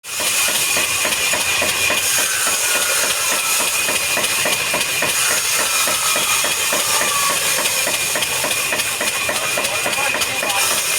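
Woodworking machinery running: a steady high whine over loud hissing noise, with a rapid regular knocking of about four to five knocks a second.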